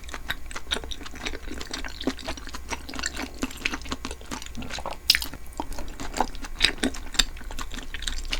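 Close-miked chewing of beef-intestine tteokbokki: wet mouth sounds with many small clicks and smacks, a louder one about five seconds in.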